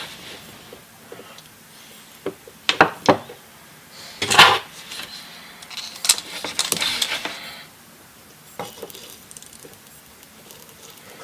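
Small hard objects clicking and clattering as they are handled and set down, with a few sharp knocks and two longer bouts of rattling clatter.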